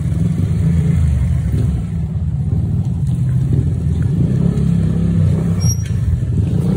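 Steady low rumble of a motorcycle ride at night: the engine running, with wind buffeting the microphone.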